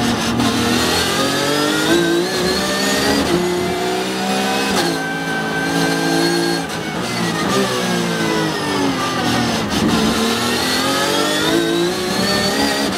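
Porsche 911 GT3 Cup's flat-six race engine heard from inside the cockpit, revving up hard through the gears with a quick upshift about five seconds in. It then falls in pitch as the car brakes and downshifts, and climbs again under power near the end.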